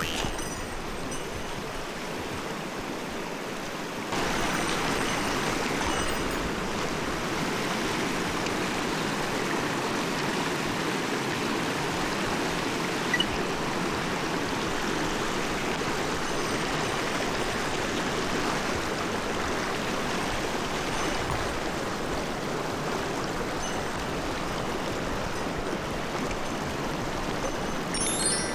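Mountain stream running, a steady rush of water that gets louder about four seconds in, with one short click near the middle.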